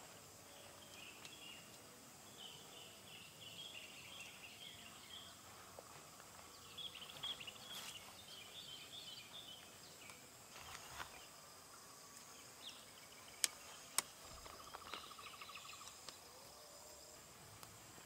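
Faint forest ambience: small birds chirping in two spells of quick, twittering phrases over a steady high insect whine. About two-thirds of the way through, two sharp clicks half a second apart stand out as the loudest sounds.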